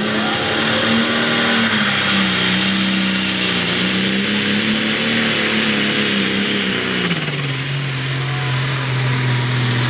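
Single-turbocharged six-cylinder diesel of a John Deere 4250 pro stock pulling tractor running at full throttle under heavy load as it pulls the sled. The engine pitch wavers, then about seven seconds in the engine speed drops and holds lower under the load.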